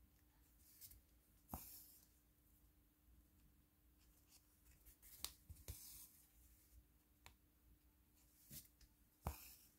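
Faint, scattered small clicks and taps of diamond painting work: resin drills and the drill pen being handled and pressed onto the canvas, about seven light ticks spread irregularly, the sharpest ones about a second and a half in and near the end.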